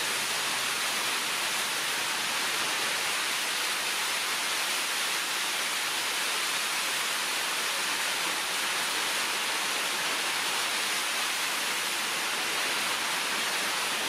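A steady, even high hiss with no breaks or distinct events.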